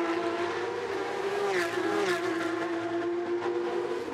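Porsche 911 GT3 Cup race car's flat-six engine running hard at a steady pitch, dipping slightly a couple of times.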